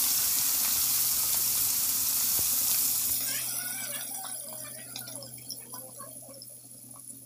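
Marinated fish pieces deep-frying in very hot oil in a kadai: a dense sizzle with scattered pops, the oil hot enough for the fish to fry golden. The sizzle fades away steadily over the second half.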